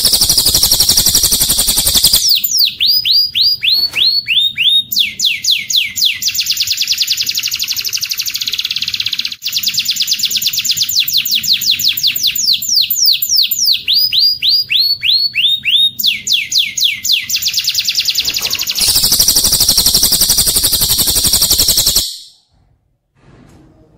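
Recorded cililin song joined with canary song: fast, dense high trills alternating with runs of quick down-slurred whistled notes, about three a second. The song stops abruptly near the end.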